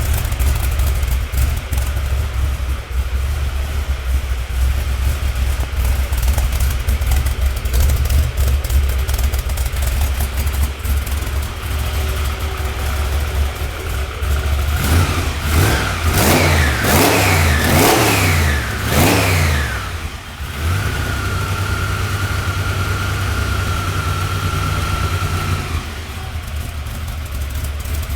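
Chevrolet Chevelle's BDS-supercharged 396 big-block V8 idling with a deep, lumpy exhaust note through a newly fitted, quieter exhaust. Past the middle it is revved sharply several times in quick succession, then settles back to idle, with a thin steady whine heard for a few seconds near the end.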